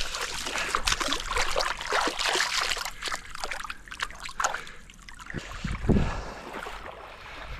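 Creek water splashing and trickling in a run of irregular splashes as a freshly landed fish is rinsed off by hand, with a dull low bump about six seconds in.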